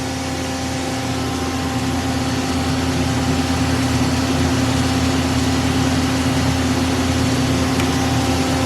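Mori Seiki SL-75MC CNC lathe running with a steady machine hum, a constant low tone over a hiss, growing slightly louder over the first few seconds.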